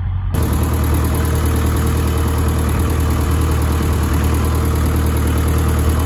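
An engine idling steadily: a low, even hum under a rushing noise. About a third of a second in, the sound changes abruptly and becomes fuller.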